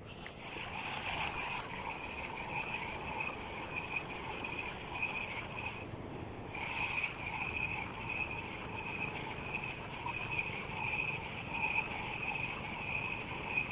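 Spinning reel being cranked, a steady fast whirring tick from its gears that stops for a moment about six seconds in and then carries on.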